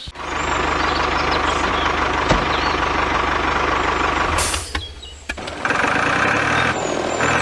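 Mini tractor's motor running steadily with a fast low pulsing. It drops out briefly about five seconds in, then runs again.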